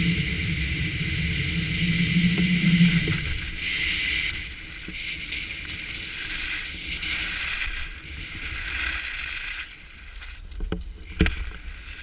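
Wind rushing over a moving action camera and skis scraping and swishing on packed snow during a fast downhill run. The rush is loudest for the first few seconds, then wavers with each turn. Near the end come a few sharp knocks, as skis or the camera hit the snow in a fall.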